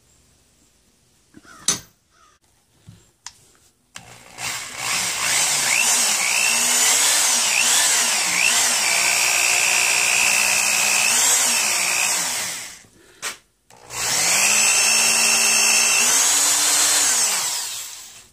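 Corded electric drill boring into the end of a wooden hoe handle, in two long runs with a short pause between, the motor's whine rising and dipping as the trigger and load change. A single sharp knock comes about two seconds in, before the drilling starts.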